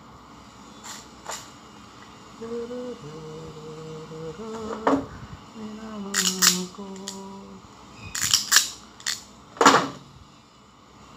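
A person humming a slow tune in held, stepping notes, with sharp clicks and snaps from hand tools working on wiring, a quick cluster of louder clicks coming about eight seconds in.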